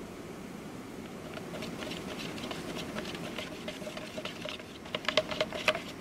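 Wooden stir stick scraping and clicking against the sides of a plastic mixing cup while stirring blue-tinted epoxy. It makes a fast, uneven run of light ticks and scrapes that get sharper and louder near the end.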